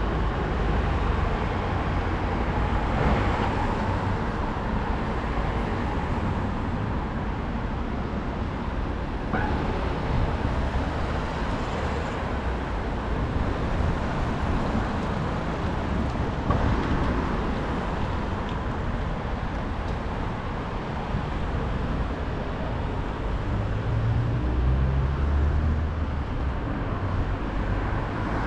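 Steady city road-traffic noise with wind noise on a bicycle-mounted GoPro's microphone while riding, and a heavier low rumble a few seconds before the end.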